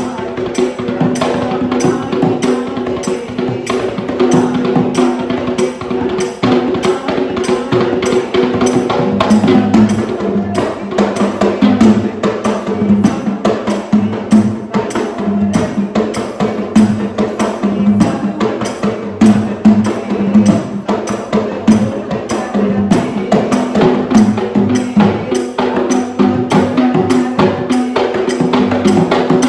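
Sri Lankan traditional drum ensemble with rabana frame drums playing a fast, dense rhythm over a steady held tone.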